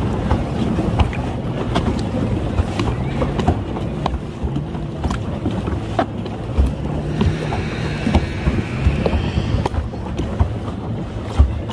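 Lake water splashing and lapping around a moving plastic pedal boat, with scattered small knocks and a low hum that rises and falls in pitch.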